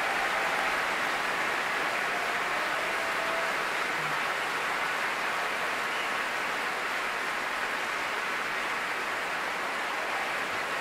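A large concert-hall audience applauding, dense and steady without a break, easing off very slightly toward the end: the ovation at the close of a symphony.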